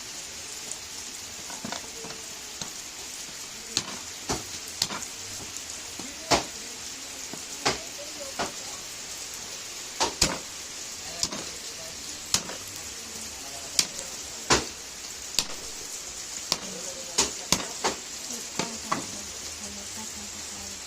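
Food sizzling in a frying pan: a steady hiss broken by sharp, irregular knocks and clicks about once a second, as a utensil stirs it.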